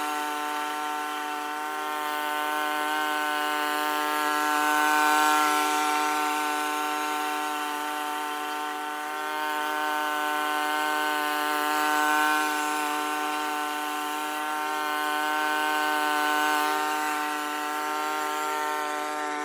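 Engine of a Honda self-propelled walk-behind mower, a single-cylinder four-stroke, running at a steady speed while it cuts grass. It makes one steady pitched hum that swells and fades a little as the mower moves across the lawn.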